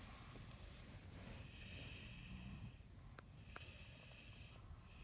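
A sleeping young child snoring softly through a stuffed-up nose, two long noisy breaths, with a couple of faint clicks between them.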